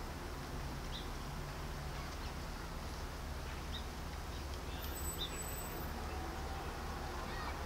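Outdoor background noise with a steady low rumble, and a few short, high bird chirps about a second in and again around four and five seconds.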